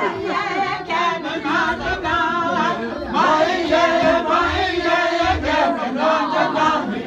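A group of voices singing together, a Navajo shoe game (Késhjéé') song.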